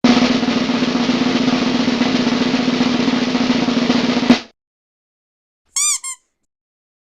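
Drum roll sound effect, a steady roll for about four seconds that cuts off suddenly. About a second and a half later comes a rubber duck toy squeaking twice, each squeak rising and falling in pitch.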